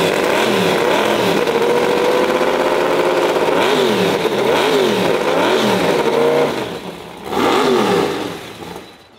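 An engine revving hard in repeated quick blips, its pitch rising and falling over and over. It drops off about seven seconds in, then gives one more rev.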